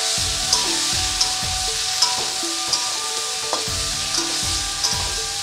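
Cubed eggplant sizzling as it fries in hot oil in an aluminium kadai, turned with a metal spatula that scrapes and clicks against the pan. Background music plays underneath.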